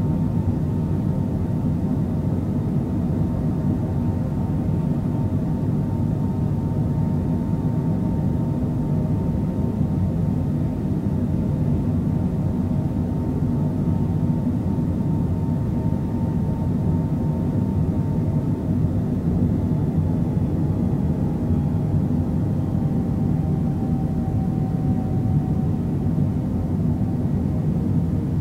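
Steady drone of a Boeing 767's jet engines heard from inside the passenger cabin, with a faint whine that slides slightly lower in pitch in the last third.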